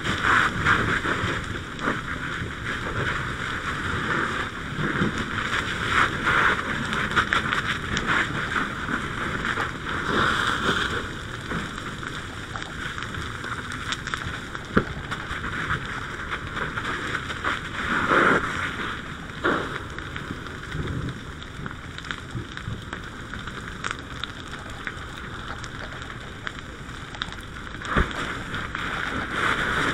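Rushing, crackling noise of a fully involved camper fire under a fire-hose stream, the water spray and burning together, surging louder every few seconds.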